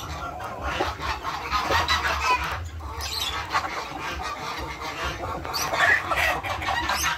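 Chickens clucking and calling, many short calls overlapping.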